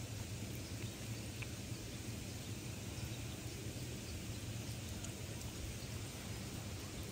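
A cat purring steadily with a fast, even flutter, with a few faint licking ticks as it eats pâté from a hand.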